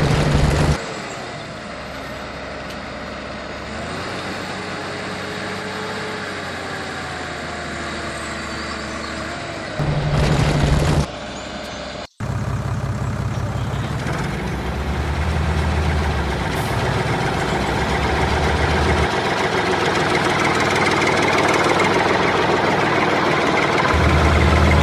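Heavy vehicle engine running steadily, with a thin whine sliding in pitch over several seconds. Louder surges come right at the start and about ten seconds in. The sound drops out abruptly about twelve seconds in, then comes back as a deeper engine that gets louder toward the end.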